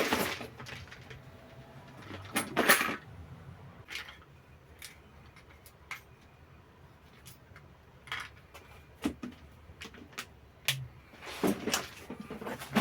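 Hands rummaging through and handling small metal parts and tools on a workbench while searching for a lost pin: scattered clicks and knocks, with louder clattering about two and a half seconds in and again near the end.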